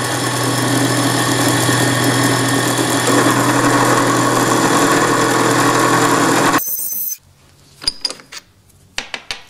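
Drill-press mill spindle, running on new angular contact bearings, cutting aluminium with a carbide end mill: a steady machine hum and whine with cutting noise. It cuts off suddenly about six and a half seconds in, leaving a few light clicks.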